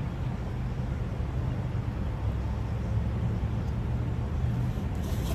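Steady low hum of an idling car engine, heard from inside the cabin.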